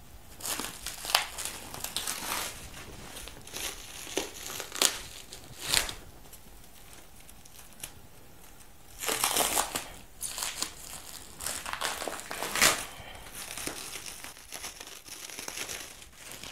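Plastic-bag and packing-tape wrapping of a parcel being pulled open by hand: crinkling in irregular bursts, with a few sharp louder cracks.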